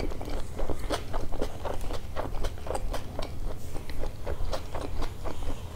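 Close-up chewing of a mouthful of hot dog: soft bun, sausage and coney sauce. It is heard as a quick, steady run of small mouth clicks.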